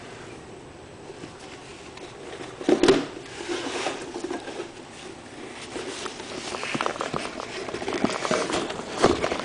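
Cardboard model-kit box being handled and opened. There is a bump about three seconds in, then irregular scraping and rustling of the cardboard lid and box with small clicks, growing busier toward the end.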